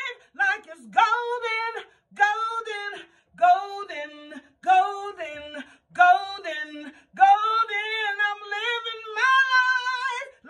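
A woman singing solo a cappella, with no accompaniment, in short sung phrases separated by brief breaths.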